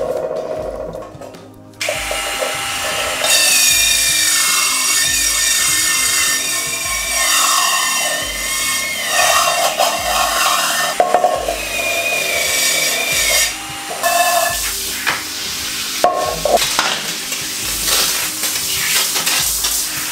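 Dremel Versa cordless power scrubber spinning a brown abrasive pad against the burnt-on underside of a wet frying pan: a steady motor whine whose pitch wavers as it is pressed down, over a rough scrubbing noise. Near the end, water from a shower head sprays over it.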